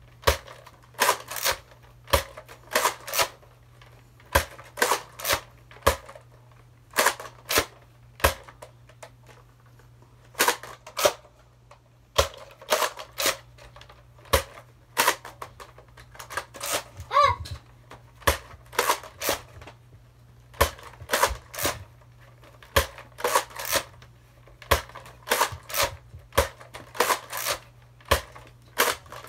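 Nerf zombie lever-action shotgun being spun and cocked one-handed: sharp plastic clacks of the lever action snapping open and shut, mostly in pairs or quick groups, repeated over and over with short pauses. A brief squeak about halfway through.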